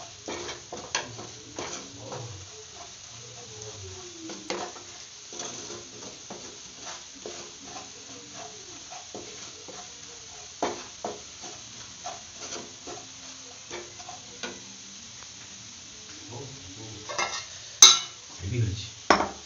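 Wooden spatula stirring and scraping flour and garlic butter around a non-stick frying pan while the mixture sizzles, the flour being fried to cook it through. Near the end come a few louder knocks of the spatula against the pan.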